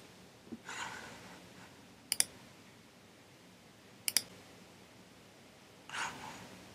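Computer mouse button clicked twice, about two seconds apart, each a sharp press-and-release double click.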